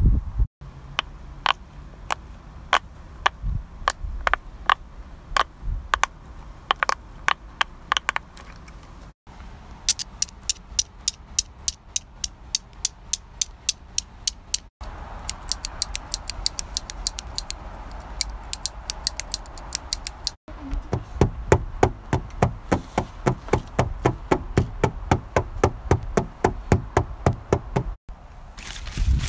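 Blue silicone pop-it fidget toy being popped, one bubble after another at about two or three pops a second. After cuts come several runs of faster, very even clicking, about five or six clicks a second, from a small object worked in the fingers.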